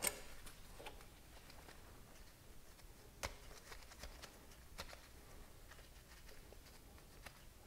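Faint, scattered clicks and taps of gloved hands spinning out a threaded metal feed-tube fitting on a tractor's hydraulic pump, over quiet room tone. There are about half a dozen light ticks, the sharpest right at the start and about three seconds in.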